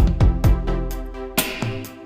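Electronic background music with a drum-machine beat: deep kick drums with a falling pitch, sharp hi-hats and held synth chords.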